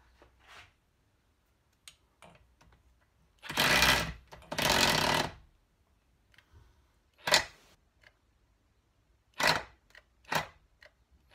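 Cordless impact driver hammering on a stubborn screw in a BSA A70L engine case: two bursts of just under a second each, a little over three seconds in, then three brief blips later on. The screw is not giving.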